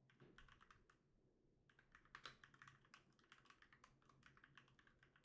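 Faint typing on a computer keyboard: a run of quick keystrokes, with a short pause about a second and a half in.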